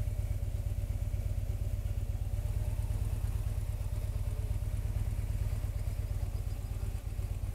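Touring motorcycle's engine running steadily at low revs, an even low beat with no revving.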